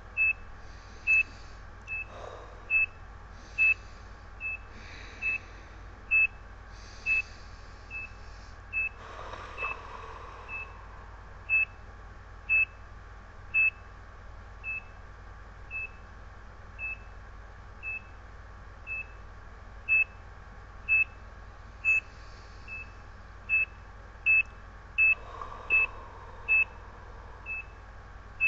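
ECG monitor's heartbeat beep sounding once per heartbeat as it tracks her pulse. Short, high, single-pitch beeps come about once a second, a little slower in the middle and quicker near the end.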